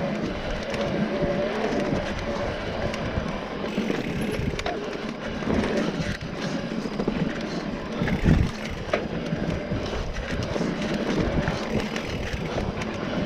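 Mountain bike riding fast over a dirt singletrack: steady tyre and rolling noise with a rush of wind on the microphone, and a running rattle of clicks and knocks from the bike over bumps. A louder knock comes about eight seconds in.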